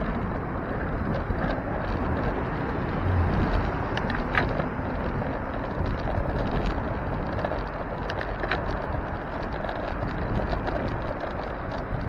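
Riding noise from a moving bicycle: a steady rush of wind and road noise with many small scattered clicks and rattles.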